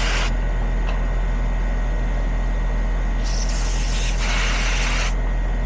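Heat pump outdoor unit running with a steady low hum, while refrigerant hisses twice through the charging hose: a brief hiss that cuts off just after the start, then a second lasting about two seconds near the end, as R-454B is added from a can to raise the subcooling.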